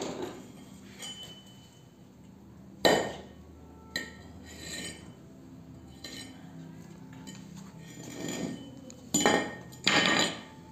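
Steel axe head knocking on a concrete floor: a few sharp metallic clinks spread out, the loudest about three seconds in and two more close together near the end.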